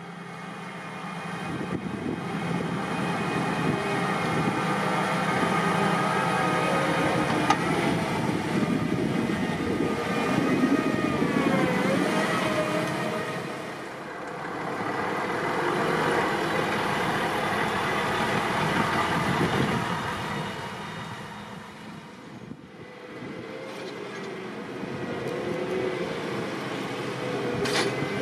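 Heavy diesel machinery running: a Vervaet Hydro Trike self-propelled slurry injector working the field, then a Volvo slurry tanker truck. The sound swells and dips a few times, with a pitch that slides down once about ten seconds in.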